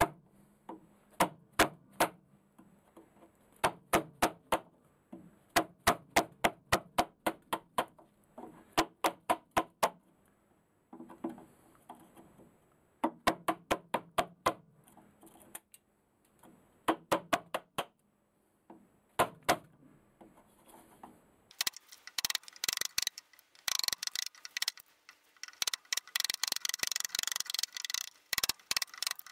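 Wood chisel chopping out the waste between saw kerfs in a pine block: quick runs of sharp taps, several a second, with short pauses between the runs. About three quarters of the way in it turns to a dense, continuous clatter of scraping and clicking.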